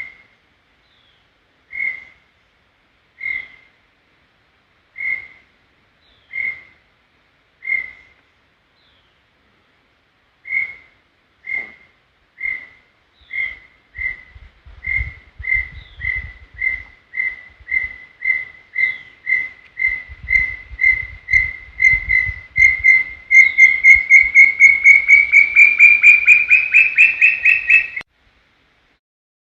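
Brown tinamou (inhambuguaçu) singing: a series of single clear whistled notes, spaced out at first, then coming faster and growing louder, rising a little in pitch toward the end before stopping abruptly.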